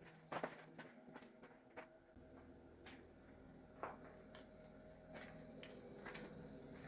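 Near silence with a faint steady hum and scattered light clicks and taps, the strongest about half a second in.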